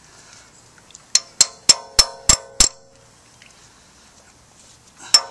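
Claw hammer striking a socket to drive a pilot bearing into the end of the crankshaft: six quick, evenly spaced metallic strikes, each ringing briefly, then after a pause a new run of strikes begins near the end.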